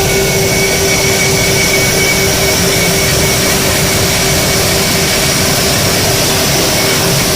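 CNC machine running: a loud, steady whirring noise with a constant tone over it, unchanging.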